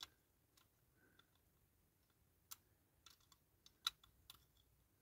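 Near silence broken by a few faint clicks and taps as small parts of a diecast toy truck are handled and fitted together, the loudest nearly four seconds in.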